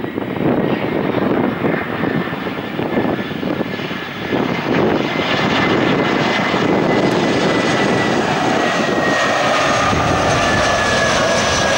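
Airbus A320-214's CFM56 jet engines at approach power as the airliner passes low on final approach. The engine noise grows louder and steadier after about four seconds, and a high fan whine slowly falls in pitch toward the end.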